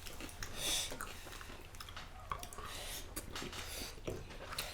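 Chewing and mouth sounds of people eating deep-fried pork leg, picked up close, with a brief louder burst a little under a second in and a few small clicks.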